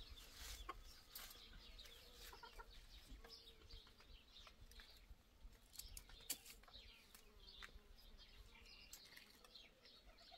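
Faint chickens clucking, with scattered light clicks of spoons on plates.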